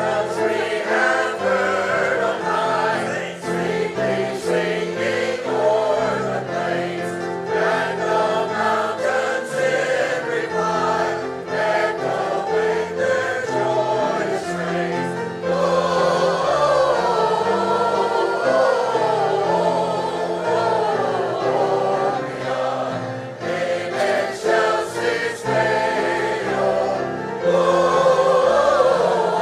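Church congregation singing a Christmas carol together, with sustained instrumental chords underneath.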